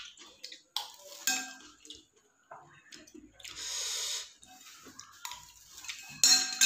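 Cutlery clinking and scraping against a plate while eating seblak noodles, in short scattered clicks. About three and a half seconds in there is a second-long noisy stretch, and near the end a louder clatter.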